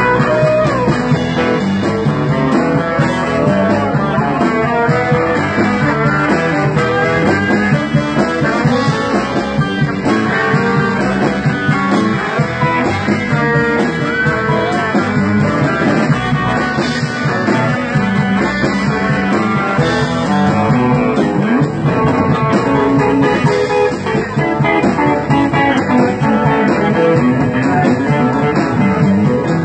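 Blues band playing live, electric guitar to the fore over bass guitar and drums.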